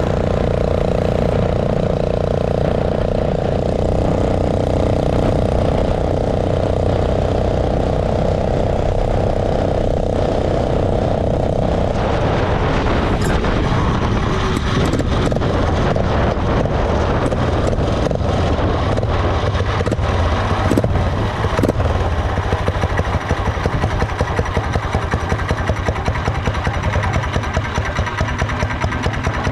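Single-cylinder four-stroke 212 cc engine of a motorized bicycle running steadily under way. About twelve seconds in the steady note gives way to a rougher, rattling sound, and in the last several seconds it settles into an even chugging as the bike slows.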